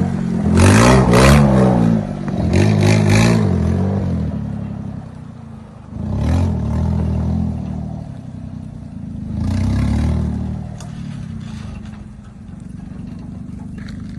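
Mitsubishi Minicab mini truck's small three-cylinder engine revving in repeated bursts, its pitch rising and falling, four times over the first ten seconds or so, then running lower and steadier.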